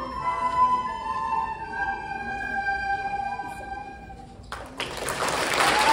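A class of children playing plastic recorders together, finishing a piece on a long held note. About four and a half seconds in, the audience breaks into applause.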